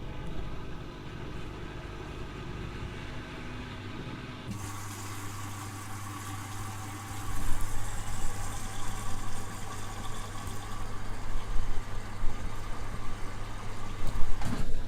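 Hoover washing machine at the start of a cotton cycle: a steady hum, then about four seconds in a sudden low buzz with a rushing hiss, typical of the water inlet valve opening to fill the drum. From about seven seconds the sound grows louder and uneven.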